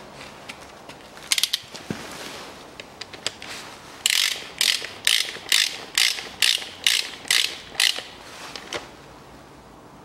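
Clutch release fork and release bearing of a Chevrolet Lanos five-speed manual gearbox worked back and forth by hand in the bellhousing, the bearing sliding on its greased guide sleeve. A few metallic clicks come first, then about nine short, even rasping strokes a little over two a second.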